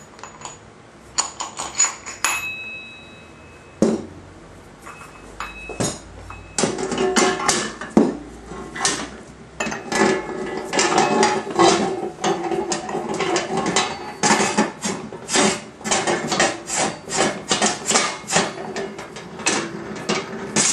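DIA HPP-02 electric-hydraulic punch: a few clicks and knocks as the punch is set up, then its hydraulic pump running in a rapid run of sharp pulses as it presses a hole through sheet metal.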